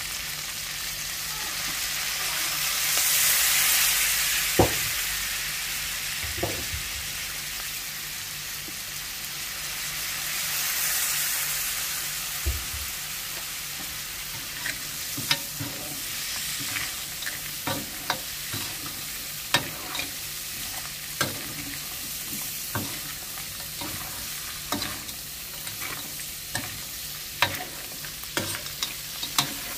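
Crab stir-fry sizzling in a hot pan, with two swells of louder hissing in the first half. From about halfway on comes a run of sharp clicks as a spatula strikes and scrapes the pan while the food is stirred.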